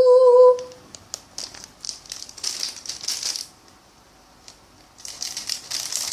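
Plastic blind-pack wrapper of a mini toy car crinkling and rustling as it is handled and opened by hand, in two spells with a short quiet gap between. A held sung note ends just under a second in.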